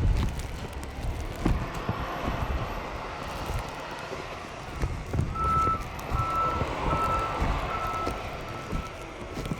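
A vehicle's reversing alarm beeping: about six short beeps at one pitch, evenly spaced, starting about five seconds in and fading toward the end. Under it runs a steady rumble of street traffic.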